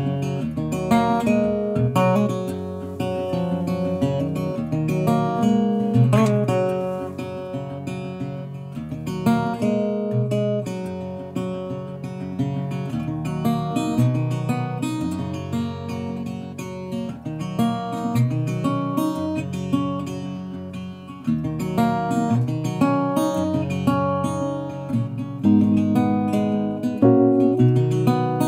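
Background music: acoustic guitar played with picked notes and strummed chords, changing chords every few seconds.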